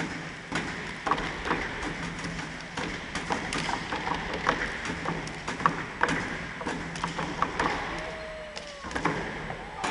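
Step team stepping: sharp stomps and hand claps on the stage floor at an irregular pace, over crowd noise and voices.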